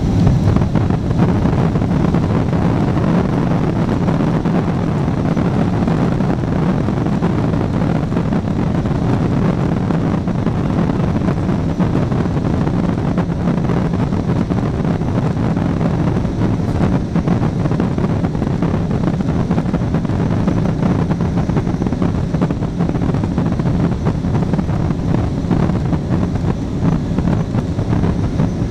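Cabin noise of a Boeing 777-200ER rolling along the runway, heard from a window seat by the wing: a steady, loud rush of jet engine and airflow noise over a low rumble, with no clear rise or fall.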